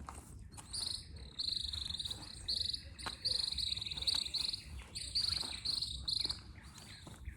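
Small animals calling, likely insects: short, high-pitched pulsed trills repeating roughly twice a second from about a second in, over a faint low rumble.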